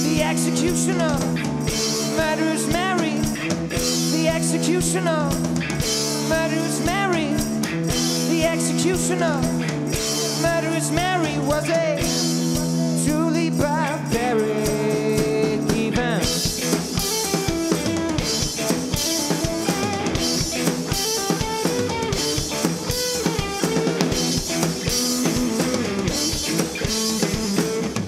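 Live garage rock from an electric-guitar-and-drums duo, with no vocals: a Squier Stratocaster-style electric guitar plays bent lead notes over held chords while a drum kit keeps the beat. About halfway through the cymbals and drumming get busier.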